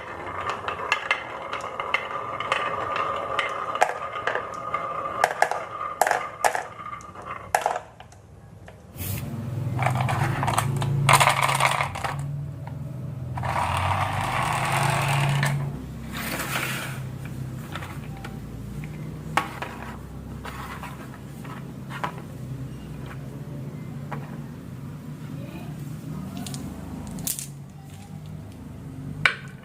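Marbles clicking and rattling as they run down a marble run track, many small rapid impacts. About nine seconds in, the fast clatter gives way to a lower, steadier rolling rumble with scattered clicks.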